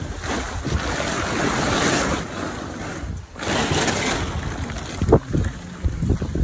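Wind buffeting the microphone in gusts, a loud rushing noise that drops away briefly about three seconds in, with a few short knocks and rustles near the end.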